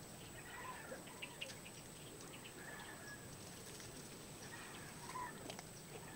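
Faint birds chirping a few scattered times, with light clicks from handling the pot and soil.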